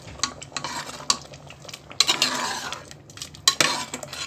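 A metal ladle stirs thick keerai kadaiyal, a mash of spinach and dal, in a pressure cooker pot. It clinks and knocks against the pot's sides, with two longer wet stirring swishes about two and three and a half seconds in.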